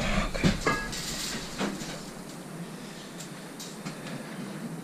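A stainless-steel sink-and-hob top being handled and carried: several knocks and rattles in the first second and a half, with a brief ring under a second in, then quieter handling noise.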